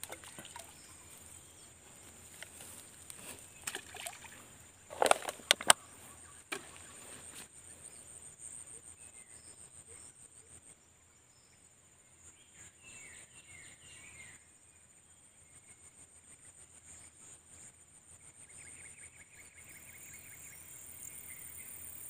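Swamp-bank outdoor ambience with a steady high-pitched insect buzz. A quick cluster of sharp knocks about five seconds in is the loudest sound, and faint chirping comes in the second half.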